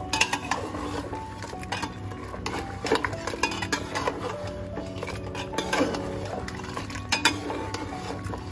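A metal ladle stirring mutton curry in an aluminium pot, with irregular clinks and scrapes against the pot's sides. Soft background music with held notes runs underneath.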